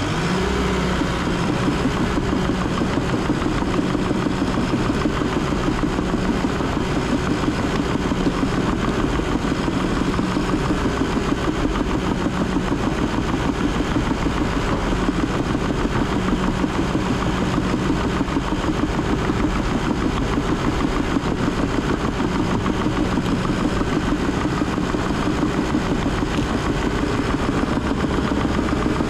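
Cat D3 bulldozer's diesel engine running steadily as the dozer works forward, heard from the operator's seat.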